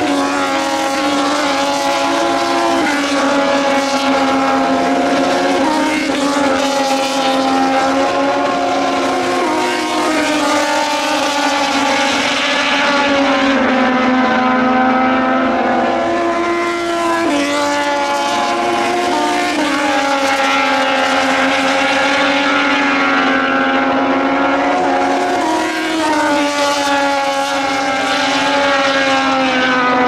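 Several Moto2 bikes' Triumph 765 cc three-cylinder engines at high revs as a group goes through a corner. The engine notes overlap and their pitch steps up and down with gear changes.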